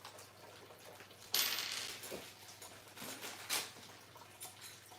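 Desk parts being handled during assembly: a short rattling clatter about a second in, then a sharp click a couple of seconds later, with faint small knocks between.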